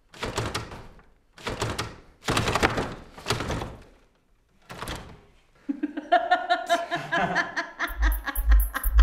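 A series of five dull thuds against a wooden door, roughly a second apart. Music then comes in about six seconds in, with a pulsing bass beat near the end.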